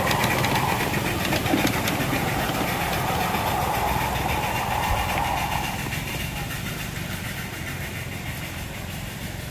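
A ride-on 1-inch-scale live-steam locomotive and its cars running on 4.75-inch gauge track. The running noise fades over several seconds as the train moves away.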